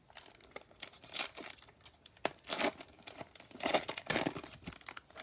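Plastic wrapper of a trading card pack being torn open and crinkled by hand, in a run of irregular rustling rips.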